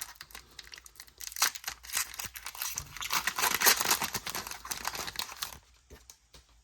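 Foil wrapper of a Pokémon trading card booster pack being crinkled and torn open. The crackling is dense, loudest about three to four seconds in, and dies away sharply near the end.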